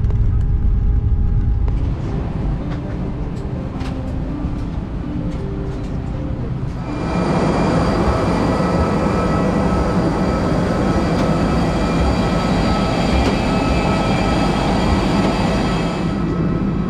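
Airbus A320 jet aircraft noise: a heavy low cabin rumble as the airliner rolls out on the runway, easing after about two seconds. From about seven seconds it gives way to a louder steady rush with a high whine of jet engines on the apron.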